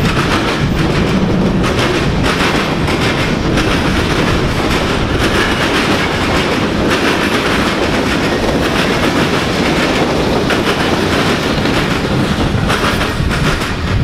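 Freight cars rolling past, steel wheels clicking and clattering over the rail joints in a steady loud rush, until the last car clears near the end.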